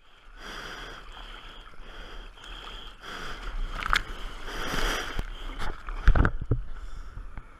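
Sea water rushing and splashing around a surfboard and the action camera mounted on it, swelling and easing, with a few sharp knocks and a loud thump about six seconds in.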